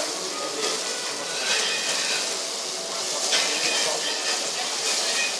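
Onion and capsicum sizzling in hot oil in a pan, stirred with a utensil that knocks and scrapes against the pan now and then.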